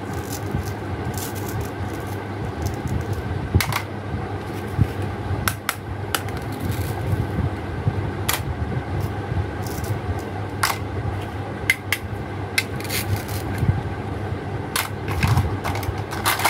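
Hard plastic toy fruit pieces clicking, tapping and clattering as they are handled and dropped into a plastic basket, with a plastic toy cutting board set down, over a steady low hum.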